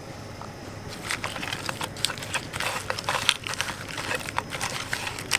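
Hands rubbing salt and turmeric into raw giant freshwater prawns (golda chingri): the shells click and rustle irregularly, starting about a second in.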